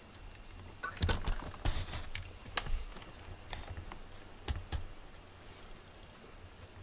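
A run of light, irregular clicks and taps, about a dozen, starting about a second in and stopping near the five-second mark.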